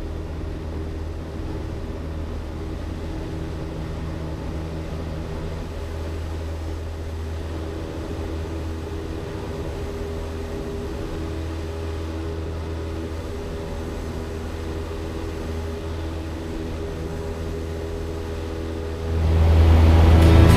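Cessna 172's piston engine and propeller at full takeoff power, a steady drone heard from inside the cabin through the takeoff roll and climb-out. Music fades in near the end and becomes louder than the engine.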